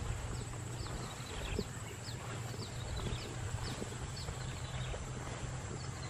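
Outdoor ambience with a steady high insect drone and a regular run of short, falling chirps about twice a second, over soft scattered footfall-like knocks.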